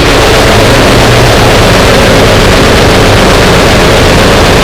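Noisecore: a continuous wall of harsh, heavily distorted noise at near full loudness, with no breaks or pauses.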